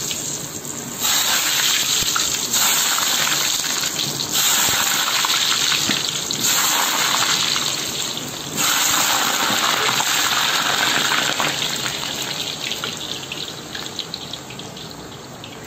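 Potato wedges frying in hot oil: loud sizzling and bubbling that jumps up suddenly five times in the first nine seconds as more potatoes go in, then slowly dies down.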